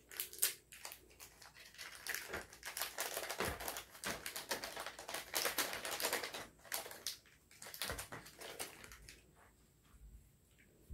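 Plastic candy wrapper crinkling as a jelly packet is torn open and handled: a dense run of quick crackles that thins out after about nine seconds.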